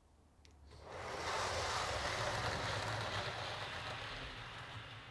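Model railway Mark 3 coaches rolling along the track and through a diamond crossing, a steady rolling noise that swells about a second in and slowly fades as they pass. They run through smoothly.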